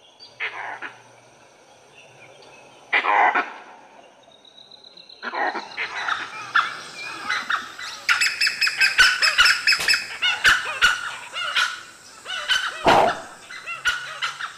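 A pack of dholes (Indian wild dogs) calling as they mob a leopard they have treed. There are a few single barks at first, then from about six seconds a dense run of high-pitched yelps and squeals, with one loud call near the end.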